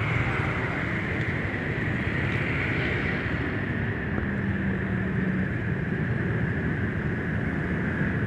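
Steady road traffic from buses, cars and motorcycles running and passing, with a high whine that slowly drops in pitch throughout.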